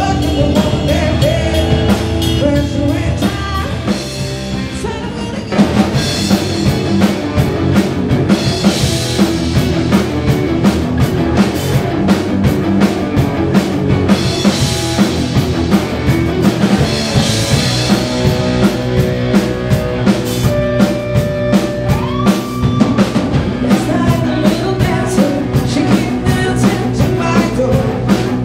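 Rock band playing live in a rehearsal room: female lead vocals over electric guitars, bass guitar and a drum kit. The music dips quieter about four seconds in, then the full band comes back in louder at about five and a half seconds with a steady drum beat.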